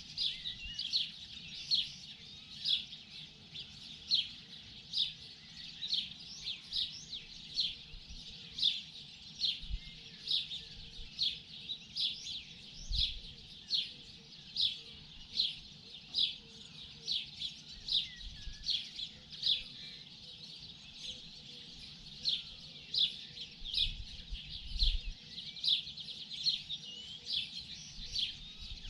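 Songbirds chirping in the morning: a steady run of short, high chirps, about one or two a second, over a faint low background hum.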